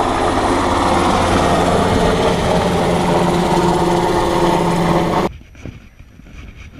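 Large military helicopter flying low overhead: loud, steady rotor and turbine noise with held engine tones. It cuts off abruptly a little over five seconds in, leaving faint knocks and handling sounds.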